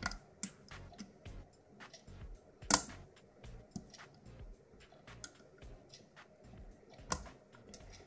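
Hook pick and tension wrench working the spool-pinned pins of an ERA six-pin euro cylinder: a scatter of small, sharp metal clicks as the pins are lifted and set. There is a louder click about three seconds in and another near the end, when the cylinder opens.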